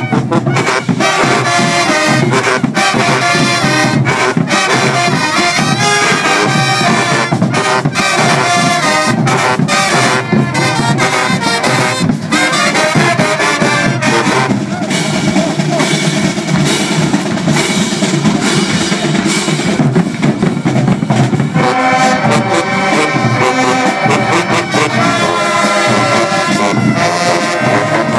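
Marching band playing loud brass-heavy music, trumpets, saxophones and sousaphones over sharp drum hits. About halfway through the high horns thin out, leaving the lower brass, and they come back in full about three-quarters of the way through.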